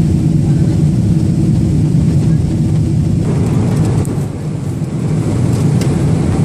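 Steady low cabin drone of a Boeing 777-300ER airliner in flight: engine and airflow noise heard from the economy cabin, with a few faint clicks near the end.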